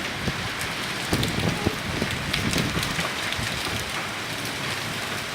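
Hailstorm: a steady hiss of heavy rain with many sharp, irregular ticks and clicks of hailstones striking hard surfaces.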